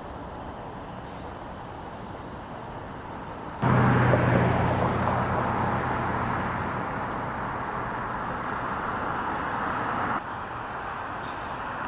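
Street traffic ambience. About a third of the way in, a much louder stretch of road noise starts suddenly with a low engine hum, like a motor vehicle close by. It slowly fades, then cuts off near the end, back to the quieter street background.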